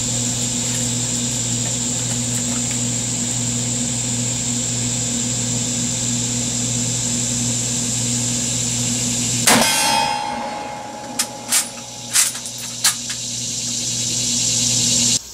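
A steady drone, then about nine seconds in a single loud shot from a 1943 Mosin-Nagant rifle in 7.62x54R, with a brief ringing ding as a steel target is hit. Four quick metallic clacks follow over the next two seconds as the bolt is worked to chamber the next round.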